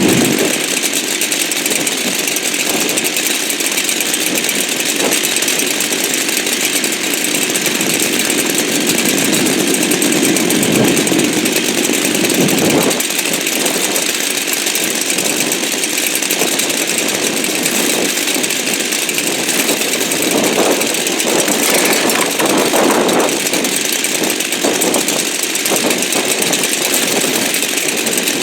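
Two-stroke gasoline chainsaw running steadily at speed, its pitch shifting briefly a few times along the way.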